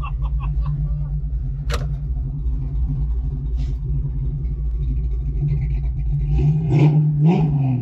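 1988 Ford Mustang GT's V8 idling with a steady low rumble, with a brief rise and fall in engine speed near the end.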